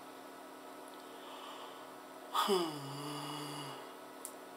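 A man yawning aloud: a little over two seconds in, a voiced yawn drops in pitch and holds one low note for over a second before fading. A small click follows near the end.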